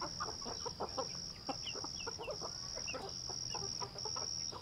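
A flock of chickens clucking as they forage, with many short soft clucks overlapping and a few small rising chirps among them. A steady high insect drone sounds behind them, breaking off briefly every half second or so.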